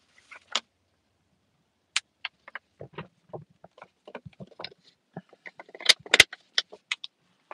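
Thin plastic water bottle being handled: a string of sharp crackles and clicks from the plastic, sparse at first and loudest about six seconds in.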